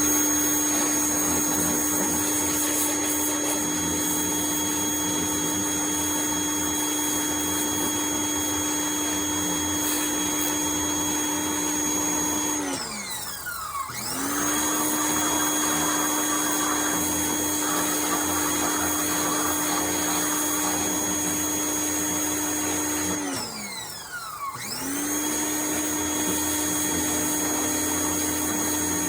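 Power washer running steadily at one pitch while spraying. Twice it winds down, its pitch falling away, then starts back up to full speed about a second later, as the trigger is let go and squeezed again.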